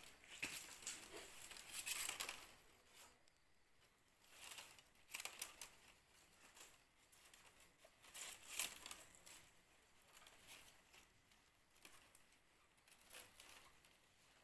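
Stiff strips rustling and clicking against one another as gloved hands weave them into a pot trivet. It comes in irregular bursts, loudest about two, five and eight and a half seconds in.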